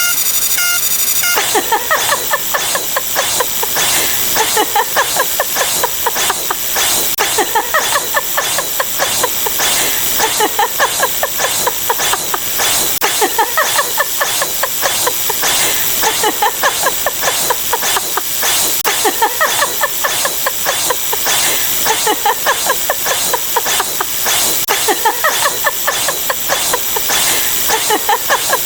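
Many sound effects layered on top of one another into a dense, hissing clutter with rapid pulses and short squealing tones. It takes over about a second and a half in from a steady pattern of repeated beeps.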